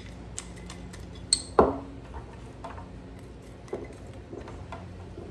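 Light, dry freeze-dried sweet potato slices clicking and clinking against a glass canning jar as they are shaken down and dropped in one by one. One louder knock comes about a second and a half in.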